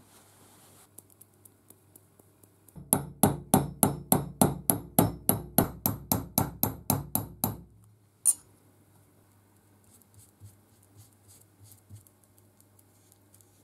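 Hammer tapping a pin punch to drive a pin into a vise's movable jaw: a run of about eighteen sharp metal-on-metal strikes, about four a second, then a single sharp strike a moment later.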